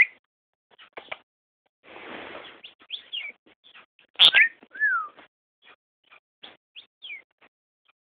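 Pet lovebird making short chirps and squeaks. There is a brief raspy noise about two seconds in, and a louder sharp call with a falling whistle about four seconds in.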